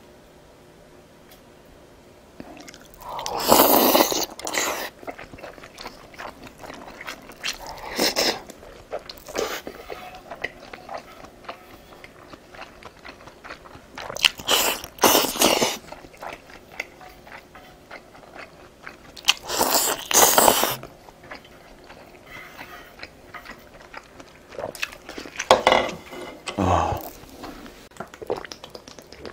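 Close-miked eating: chewing and biting of Korean king dumplings and freshly made green onion kimchi, with about five louder bursts of eating noise a few seconds apart.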